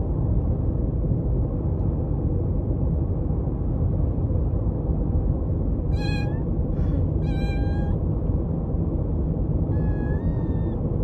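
Kitten meowing three times, about six, seven and ten seconds in, each meow short, over a steady low rumbling background noise.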